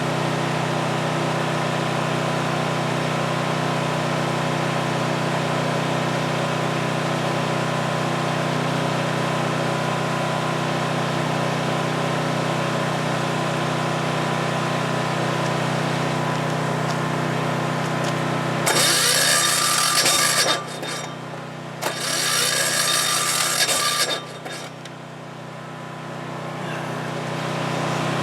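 ETQ DG7250LE diesel generator running steadily with an even drone. Near the end come two loud, rough stretches of about two seconds each, after which the sound drops and then builds back up.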